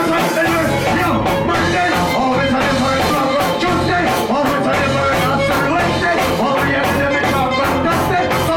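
Live reggae music: a vocalist chanting into a microphone over a steady bass line and drums with regular cymbal ticks.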